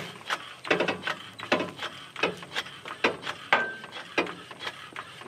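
Car jack being worked under the front of a truck: a run of short clicks and knocks, about two a second, with a brief high squeak past the middle.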